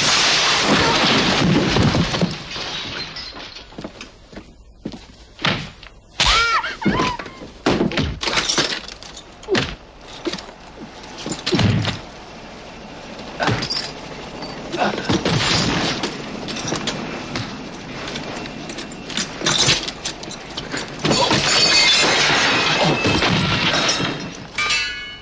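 A fight: repeated thuds of blows and of bodies hitting furniture and walls, with things breaking, and a long crash near the end.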